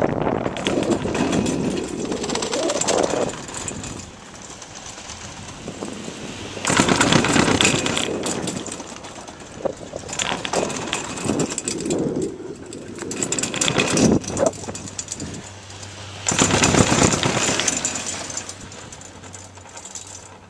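Wind buffeting the microphone of a handheld camera in several loud gusts while riding a chairlift, over a low mechanical rumble from the lift, with a faint steady hum in the second half.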